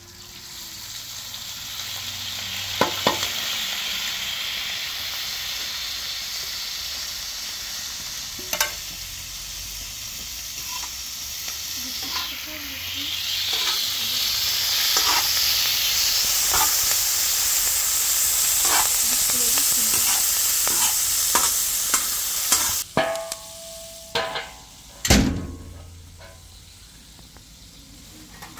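Chopped onions sizzling as they fry on a hot iron griddle pan over a wood fire, with a metal spatula scraping and tapping now and then as they are stirred. Near the end the sizzle drops and a few metal clanks sound as a metal cover is set over the pan.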